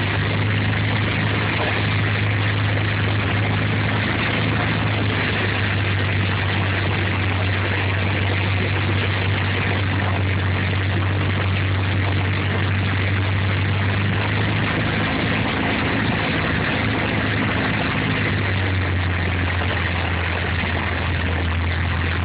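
Cabin noise of a Piper PA-28 light aircraft on final approach: a steady drone from its piston engine and propeller with a hiss on top. About three-quarters of the way through, the engine note drops lower as power comes back for landing.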